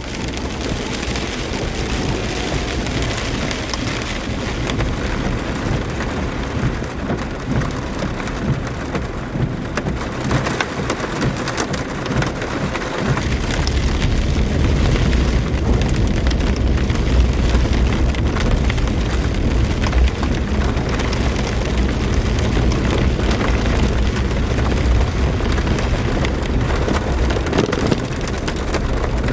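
Heavy rain pouring down during a thunderstorm, a dense steady hiss. About halfway through, a strong low rumble joins in and continues.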